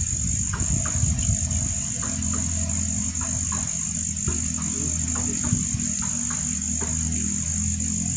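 Insects droning steadily at a high pitch, with short bird chirps scattered over it.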